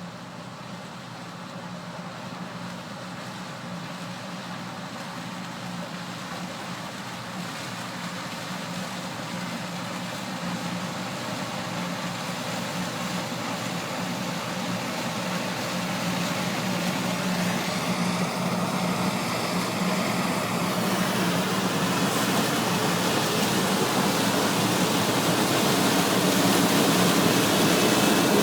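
John Deere 9560 WTS combine harvesting corn with a Capello corn header: a steady machine drone with a low hum, growing steadily louder throughout.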